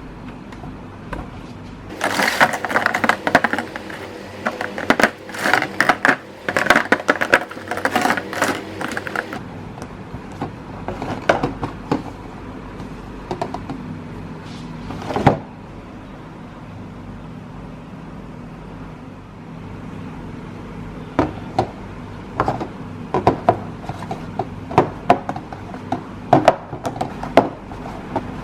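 Faber-Castell Connector felt-tip pens being handled and swatched: dense scratchy rubbing and clicking for several seconds, then scattered sharp clicks and taps, with a busier run of clicks near the end, over a steady low hum.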